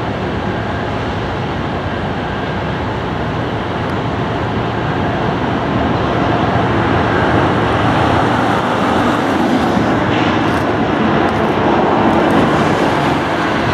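Canadian Pacific potash train's diesel locomotives, led by GE ES44AC 8720, running as the train approaches: a steady engine drone that slowly grows louder.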